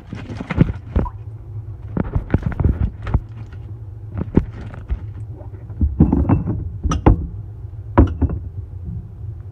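A run of irregular knocks and clatters, as of objects being handled and set down, over a steady low hum.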